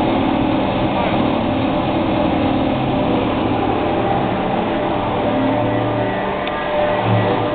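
Steady din of construction-site machinery running, with several held mechanical tones and no pauses.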